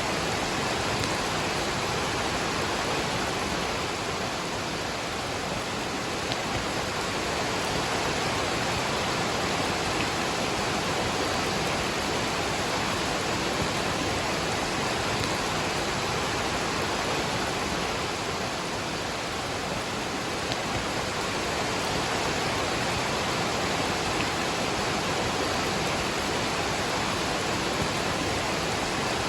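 Waterfall and rain, a steady rushing of water.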